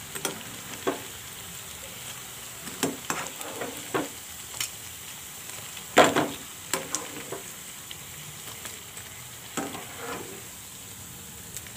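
Sabudana vadas sizzling in hot oil while a wire-mesh strainer and a perforated steel spoon lift them out. The metal utensils knock and scrape against the pan in scattered sharp clicks, the loudest about six seconds in.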